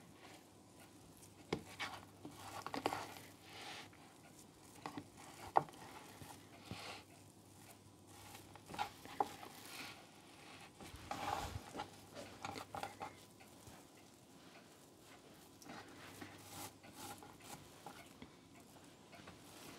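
Hands shaping a sticky bread dough of freshly milled flour on a cutting board: faint, scattered soft pats and squishes with light taps on the board.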